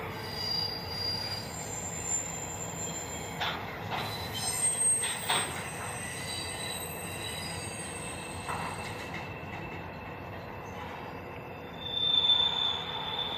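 Steel train wheels squealing against the rails, several high-pitched squeal tones that start, stop and shift over a few seconds, with a few sharp clicks. A louder, steadier high squeal comes in near the end.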